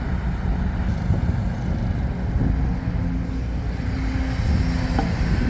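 Heavy vehicle engine running with a steady low rumble; a steady hum joins in about halfway through.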